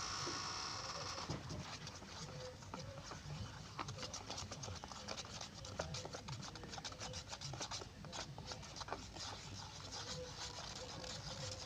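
Irregular light scraping and tapping clicks, with a faint hiss during the first second or so.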